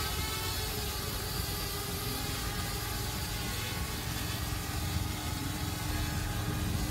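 Parrot Bebop 2 quadcopter flying low, its propellers giving a steady hum of several held tones over a rushing noise.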